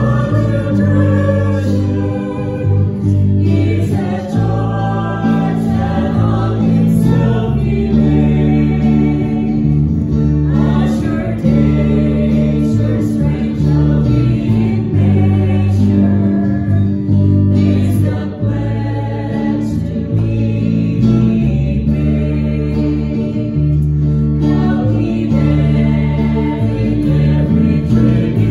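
A mixed choir of men's and women's voices singing a worship song together, accompanied by a small band with electric and acoustic guitars and steady bass notes.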